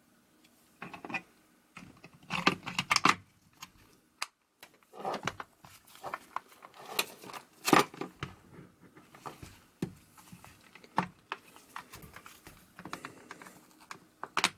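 Irregular clicks, knocks and scrapes of a hard plastic tool housing being handled, as the Ryobi P737 inflator's two yellow plastic shell halves are fitted back together around the motor and pump.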